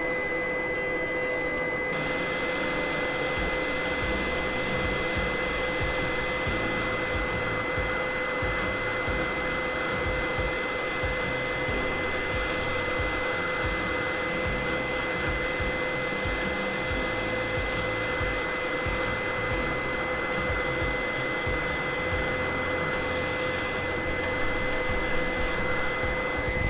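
Hot-air rework gun blowing steadily onto a USB-C power-delivery controller chip on a laptop motherboard to melt its solder. A steady airy hiss carries a constant high-pitched whine, and the hiss turns brighter about two seconds in.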